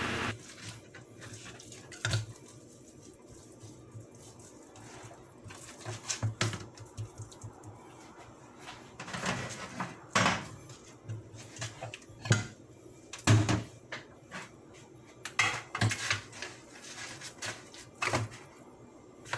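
Irregular knocks and clatter of kitchen handling: a whole fish being moved about on a plastic cutting board and set into a metal baking pan.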